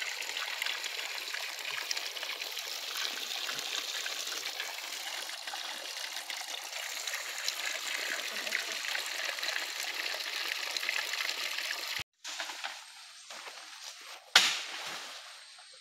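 A flowing stream, a steady rush of water. It cuts off abruptly about twelve seconds in, and a single sharp knock follows a couple of seconds later.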